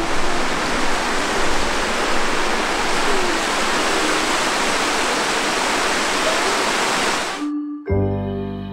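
Small waterfall rushing over rocks into a pool, a steady loud rush of water. It cuts off abruptly near the end and music with mallet-percussion notes begins.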